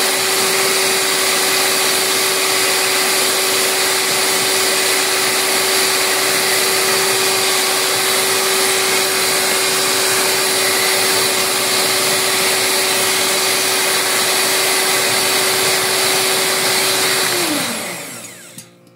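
Mondial Prática 400 W stand mixer running at a steady speed, its beaters whipping thick batter in the bowl, with a constant motor whine. Near the end the mixer is switched off and the whine falls in pitch as the motor winds down.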